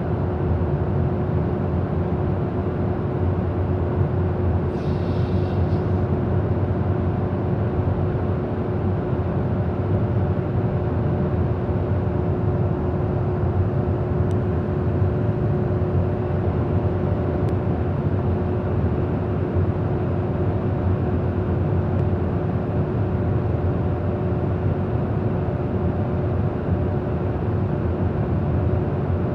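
Steady in-flight drone inside a KC-135 Stratotanker: engine and airflow noise with a constant hum tone running through it.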